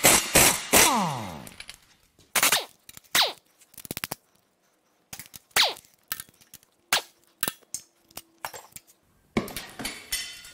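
Pneumatic impact wrench hammering in short bursts as it zips out exhaust manifold bolts on a big-block Chevy 454. After the longer bursts the air motor spins down in a falling whine.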